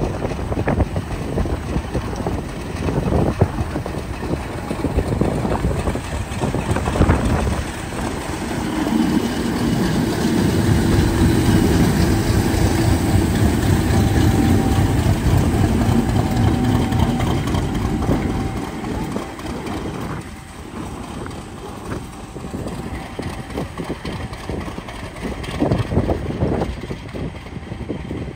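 Class 50 diesel locomotive's English Electric 16-cylinder engine running close by. It grows louder to a steady droning peak in the middle as the locomotive passes, then eases off.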